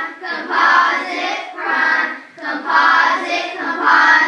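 A class of children and their teacher chanting in unison, rhythmic phrases about once a second, calling out math words such as "prime" and "composite" as they drill with hand motions.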